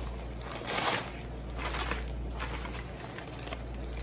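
Newspaper wrapping rustling and crinkling as a wrapped potted orchid is picked up and handled, with the loudest rustle just before a second in and another near two seconds.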